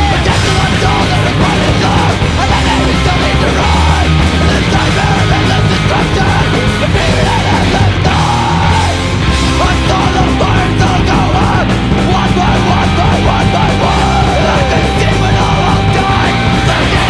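Crust punk band playing loud and distorted, with shouted vocals.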